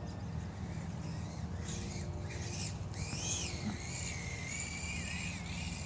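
FPV racing drone's brushless motors and propellers whining, the pitch rising and falling with throttle over a steady low hum. The sound is odd enough that the pilot suspects a rock stuck in a prop.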